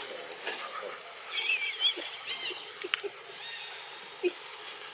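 Two short, high-pitched animal calls with a wavering pitch, the first about a second and a half in and the second a moment later, followed by a single sharp click.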